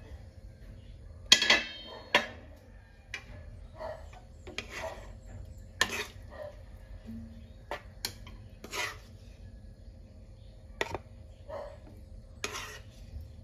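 A stainless steel pan lid clanks with a brief metallic ring about a second in, followed by a plastic spoon scraping, stirring and scooping stew in a nonstick frying pan, with scattered knocks against the pan.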